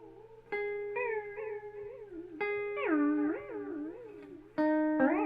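Electric guitar through a Caline Time Space delay fitted with an expression-pedal mod. Three notes are picked about two seconds apart, and the echoes after each one waver up and down in pitch.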